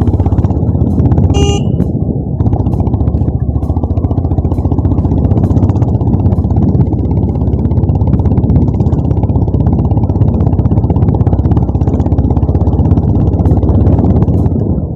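Honda CB350RS's single-cylinder engine running steadily under way, a bassy, even exhaust note. A brief high beep sounds about one and a half seconds in.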